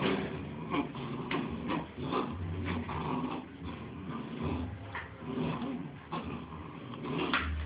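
Two bull terrier puppies play-fighting, with low growls and scuffling, and frequent short knocks and clicks as paws and claws hit the hard floor.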